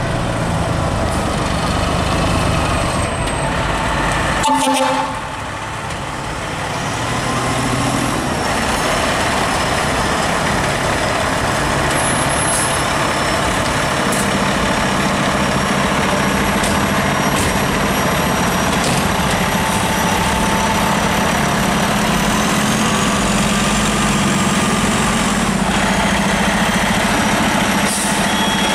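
Fire engine's Detroit Diesel Series 60 running steadily, with a short loud burst and a brief dip about four and a half seconds in; a steady low engine tone grows stronger about halfway through.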